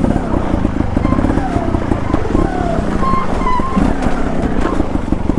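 Trials motorcycle engine running hard under throttle as the bike climbs an icy waterfall.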